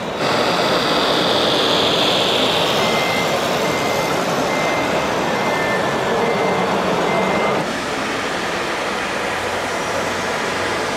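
Reversing beeper of a radio-controlled Scania model truck's sound module: short, evenly spaced beeps about once every 0.7 seconds, starting about three seconds in and stopping near eight seconds, over a steady noisy background.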